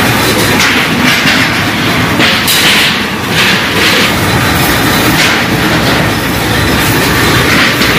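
Loud, continuous metalworking clatter: sheet steel rattling and knocking, with sharper hits coming irregularly every half second or so.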